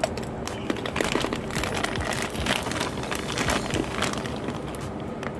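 Plastic snack bag of fish crackers crinkling as a hand grips it and reaches inside, a dense run of crackles that is thickest through the middle.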